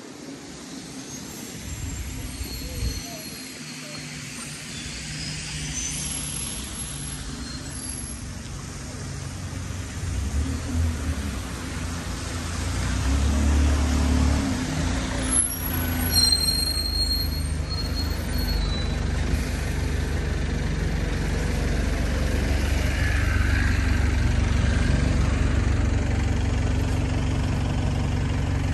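Heavy road vehicle's engine running with a low hum that grows louder over the first half and then holds steady, with a brief high brake squeal about halfway through.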